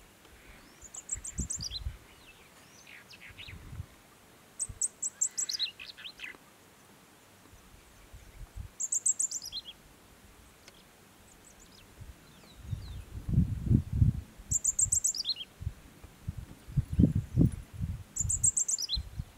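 A bird singing the same short phrase about five times: a quick run of high notes that falls away into lower ones. From about two-thirds of the way in, louder low thumps and rustles come in clusters.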